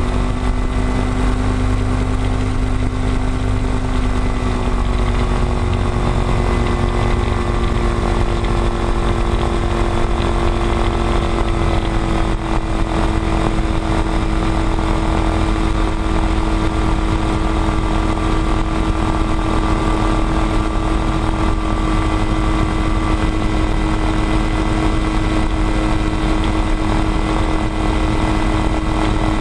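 Ultralight aircraft's engine and propeller running steadily at low power while taxiing on gravel, heard from a tail-mounted camera. The engine note shifts slightly a few seconds in, then holds steady.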